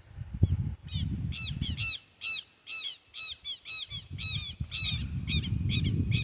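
A bird calling over and over, short rising-and-falling squawks at about three a second, starting about a second in, with low noise underneath.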